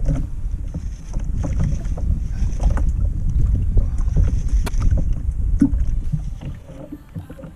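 Wind buffeting the microphone on a fishing kayak at sea, a loud, steady low rumble that eases off near the end, with scattered small clicks and knocks from handling the rod and reel.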